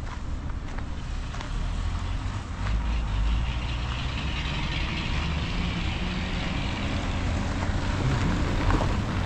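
A car comes up from behind and passes close by on a gravel road. Its engine rumble and tyre noise on the loose gravel build from about three seconds in.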